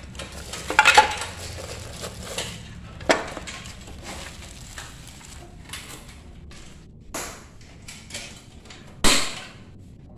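Plastic wrapping crinkling and rustling as bandsaw parts are unwrapped and handled, among a string of knocks and clatter from parts being moved and set down. The loudest clatter comes about a second in and again near the end.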